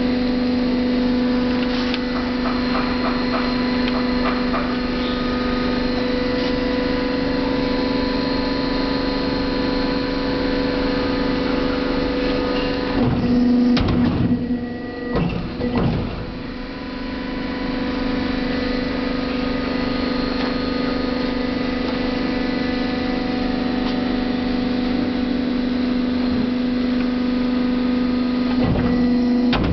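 Bridge die-cutting press running with a steady hum. About 13 seconds in a few sharp knocks and a dip in the hum come as the press head lowers over the bed to cut, then the steady hum resumes, with another knock near the end.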